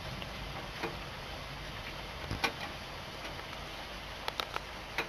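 Steady hiss of rain in a thunderstorm, with a few scattered sharp ticks, the last of them clustered near the end.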